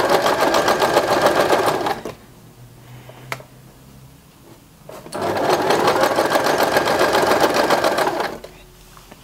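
Electric household sewing machine stitching down a narrow folded hem in thin cotton. It runs in two bursts of about three seconds each, with a pause between them. A single sharp click comes during the pause.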